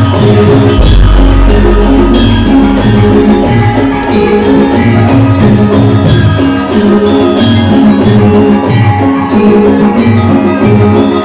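Javanese gamelan music accompanying a lengger dance: hand-drum strokes in a steady rhythm over ringing pitched metal notes, with a deep low note sounding from about a second in until the middle.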